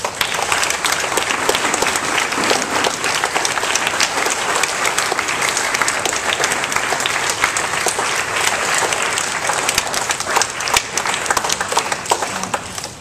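A church congregation applauding: dense clapping that starts all at once and thins out near the end.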